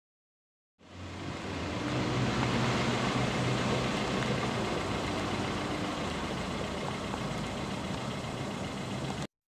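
Steady engine noise, an even rumble with a low hum, that starts abruptly about a second in and cuts off just before the end.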